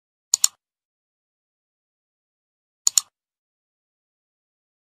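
Computer mouse click sound effect: two quick double clicks about two and a half seconds apart.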